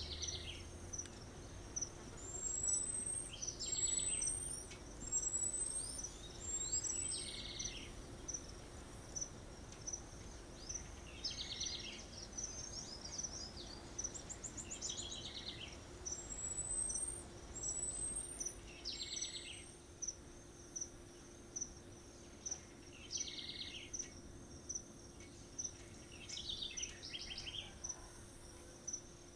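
Outdoor soundscape of insects chirping in a steady, evenly spaced run, with birds calling every couple of seconds and two short series of four high rising whistles.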